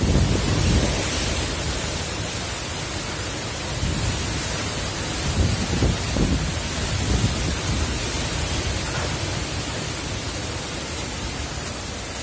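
Cyclone-force wind and heavy rain: a steady hiss of driven rain, with low gusts swelling near the start and again about four to seven seconds in.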